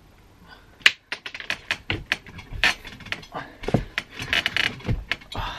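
A person clambering up onto a boarded attic floor. After a quiet first second there is a sharp click, then irregular knocks, thumps and rustles as hands and knees come down on the boards.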